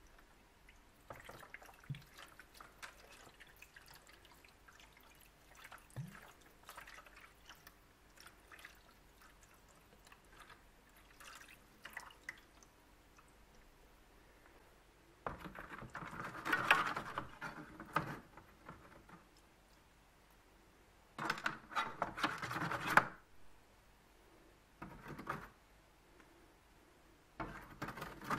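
Liquid poured from a plastic bottle onto rusty electric-cooker parts sitting in a plastic tray, splashing and dripping in a few spells. The longest spells come about halfway through and a few seconds later.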